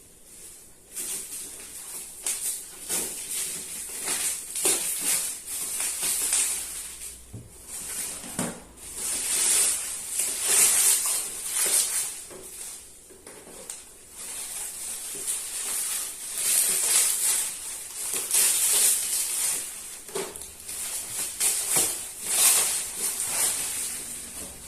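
Packaging being handled: repeated crinkling and rustling of plastic and cardboard, with a few sharp knocks.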